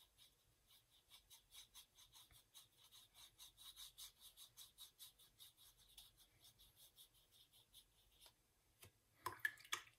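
Paintbrush bristles scrubbing back and forth on a watercolour-paper swatch card, faint and quick, several strokes a second. A short, louder rustle comes just before the end.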